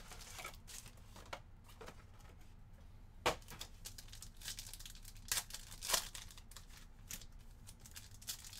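Panini Revolution trading-card box being opened and its foil card packs handled: tearing cardboard and crinkling foil wrappers in irregular crackles. The loudest snap comes about three seconds in, with another cluster near six seconds.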